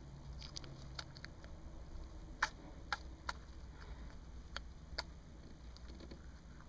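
Syrian hamster nibbling a snack with its teeth: faint, irregular small clicks, a few sharper ones in the middle, over a low steady hum.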